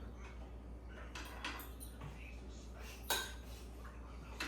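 Tableware clinking during a meal: a few light clicks of cutlery on plates, then a sharper, louder clink about three seconds in and another near the end.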